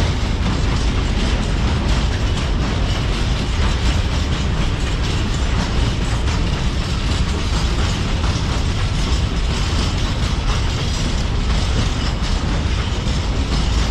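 Freight train wagons rolling past, a steady rumble with metallic rattling and wheel clatter over the rail joints.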